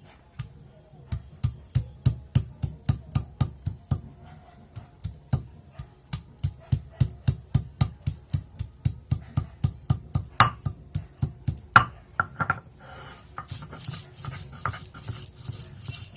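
Ginger being ground to a paste by hand on a stone, with sharp rhythmic knocking strokes at about three to four a second. Near the end the knocks give way to softer, uneven scraping.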